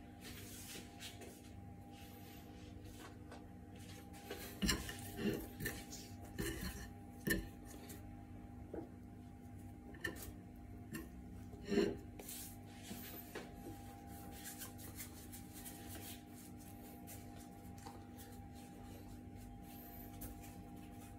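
Light clinks and knocks of a bowl and utensils on a kitchen counter while baozi are filled and shaped by hand: a cluster of knocks about five seconds in and a louder one near the middle, over a steady faint hum.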